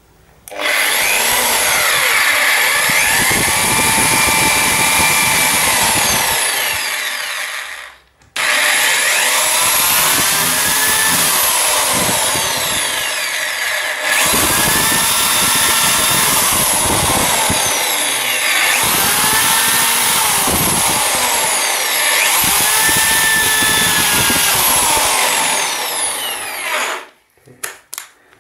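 Titan TTB276DRL 850 W corded percussion drill running and boring a row of holes into a wall, its motor pitch rising and falling as it works. It stops briefly about eight seconds in, runs again, and stops near the end.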